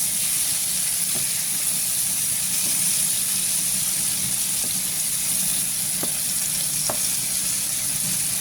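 Sliced bell peppers and mushrooms sautéing in a pan on a low stove, a steady sizzle.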